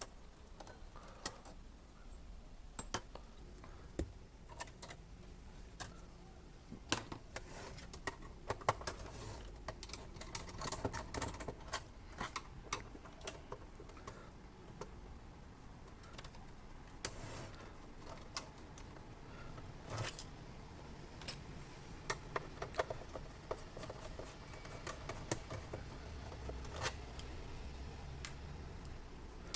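Irregular light clicks and taps of small tools, screws and plastic parts being handled while a Sharp 888 radio cassette recorder is taken apart, over a low steady hum.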